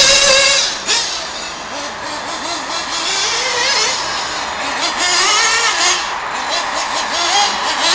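Radio-controlled off-road buggy's motor running hard, a high buzzing whine that rises and falls in pitch with the throttle. It is loud as the car passes close, then drops away sharply about a second in as the car moves off across the track.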